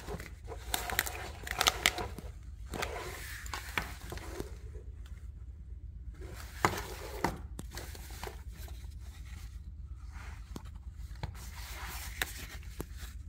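Nylon webbing straps and fabric of a chest rig rustling and scraping as they are handled, with scattered sharp clicks and knocks from its plastic buckles, the loudest a couple of seconds in and again about seven seconds in.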